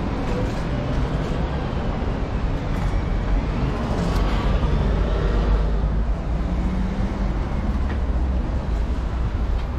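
Steady low rumble of vehicle traffic, with a noisy haze over it and no clear single event.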